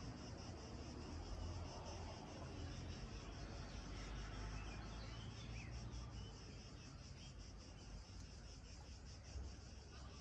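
Insects chirping outdoors in a quick, even pulse, over a faint low rumble.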